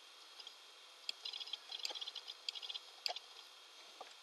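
Faint clicking of a computer mouse and keyboard: a few sharp single clicks, with quick runs of light ticks between about one and three seconds in.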